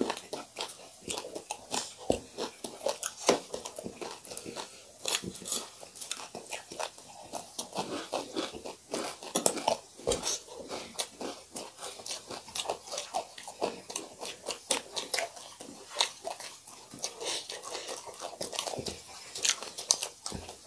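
Close-miked chewing and crunching of food, a steady run of irregular crisp crunches.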